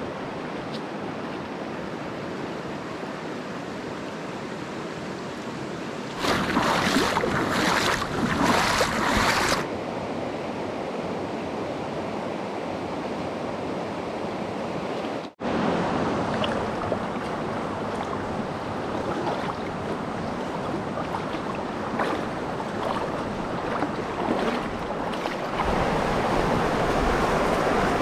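Mountain stream rushing over rocks: a steady hiss of running water, louder and rougher for a few seconds about a quarter of the way in, cutting out for an instant just past halfway.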